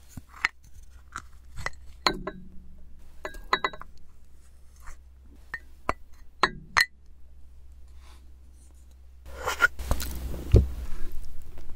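A wooden spoon scraping and clinking against ceramic dishes as rice is scraped out of a dish into a small bowl: scattered short clinks and scrapes, a quieter stretch, then a denser run of scraping and a dull thump near the end.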